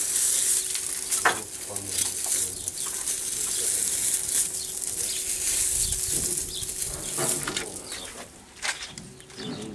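Dry straw and chaff rustling and crackling as it is handled and pulled out by hand from a combine harvester's housing, dying away near the end.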